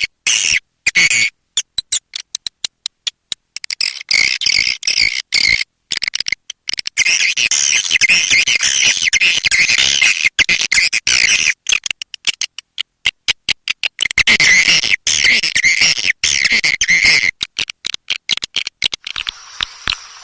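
Swiftlet lure-call recording: rapid, twittering chirps and clicks of edible-nest swiftlets in dense bursts broken by abrupt silent gaps, used to draw swiftlets into a nesting house. About a second before the end it switches to a quieter, different passage with a steady hum underneath.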